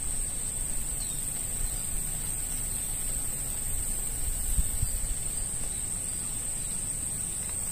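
Steady, high-pitched drone of insects, unbroken throughout, over a low rumble.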